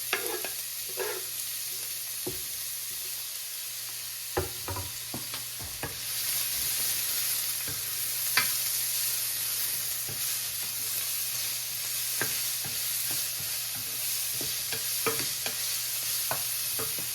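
Onion frying in oil in a pot: a steady sizzle that grows louder about six seconds in, with scattered clicks of a utensil stirring against the pot.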